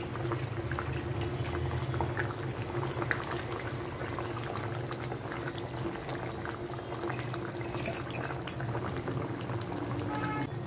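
Curry gravy simmering in a pan, bubbling with many small pops, as fried prawn fritters are dropped into it. A steady low hum runs underneath.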